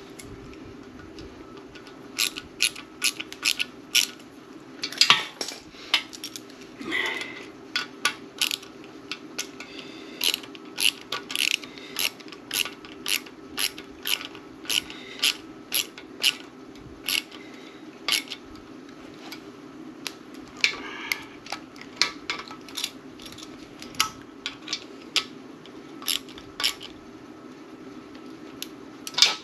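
Sharp metallic clicks and clinks from hand tools working on an engine block, irregular at about two a second, over a steady low hum.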